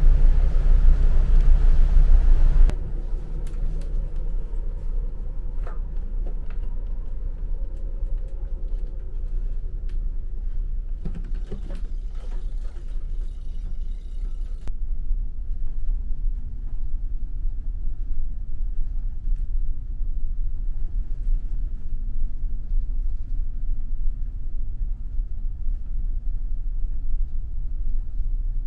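Wind blowing across the microphone on the ferry's open deck for about the first three seconds, then the steady low rumble of the car ferry's engines heard through the ship, with a few faint clicks around the middle.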